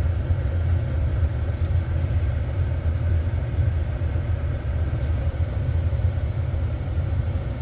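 Steady low rumble of a vehicle driving, heard from inside the cabin.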